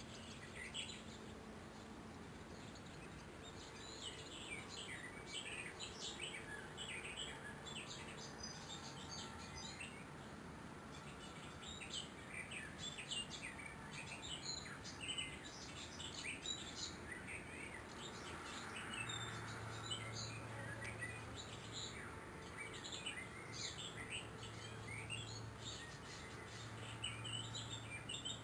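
Faint birdsong from several birds: many short, irregular high chirps and twitters throughout. A low steady hum comes in about two-thirds of the way through.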